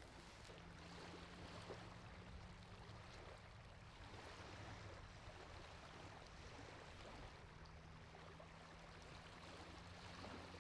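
Near silence: faint outdoor background with a low steady hum.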